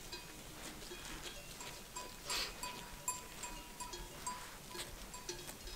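Bells on a grazing flock of sheep tinkling faintly and irregularly, with a short hissing noise a little over two seconds in.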